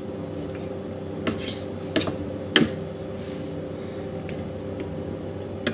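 A kitchen knife knocking against a cutting board in a few sharp clicks while raw chicken thighs are cut, over a steady low hum.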